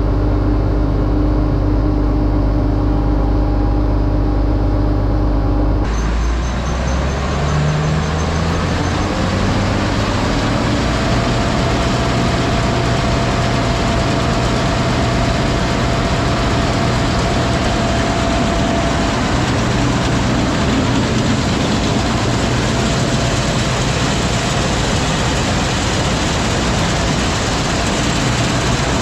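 Heavy diesel farm machinery running steadily. About six seconds in, the sound changes abruptly from a low, even engine drone to a noisier machinery rumble with a brief rising whine, then steady running.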